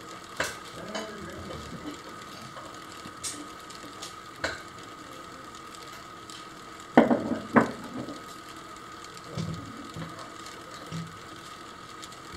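3D-printed wind-up fan running on its tape-measure spring, its gear train and blade giving a steady faint whir. A few sharp clicks are scattered through it, and two loud knocks come about seven seconds in.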